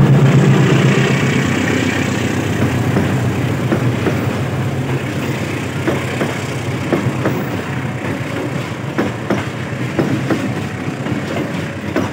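Passing passenger train: the drone of the CC 206 diesel-electric locomotive fades over the first couple of seconds, then the coaches roll by at speed, their wheels clicking irregularly over the rail joints.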